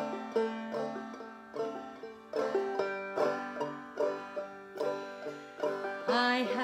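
Solo banjo picking the song's opening in a steady rhythm, each plucked note ringing briefly. A woman's singing voice comes in over it about six seconds in.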